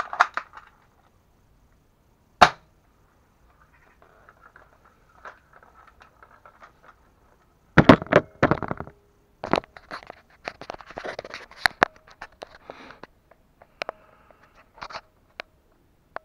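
Spring-powered airsoft sniper rifle (Well MB4410A) firing once: a single sharp snap about two and a half seconds in. From about eight seconds comes a long run of clicks, knocks and rattles from handling close to the microphone.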